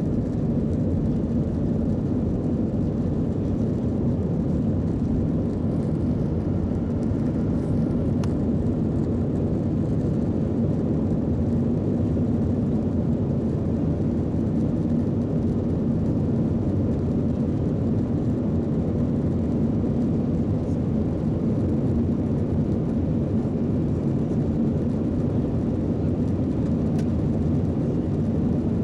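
Inside the cabin of an Airbus A319 climbing after takeoff: the jet engines at climb power make a steady, deep drone with a steady hum in it, unchanging throughout.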